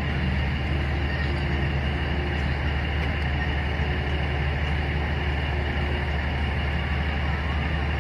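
A heavy engine running steadily: a low, even drone that holds one speed throughout.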